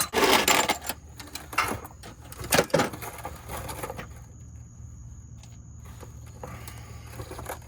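Several sharp metal clinks and knocks of tools and parts being handled in the first three seconds, then a faint steady low hum.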